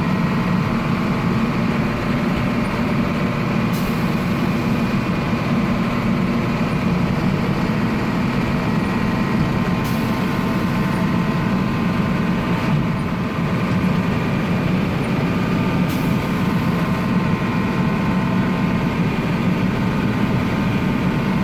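Medium-duty truck (a Chevrolet Kodiak) running steadily while driving, heard from inside the cab as a constant low engine drone.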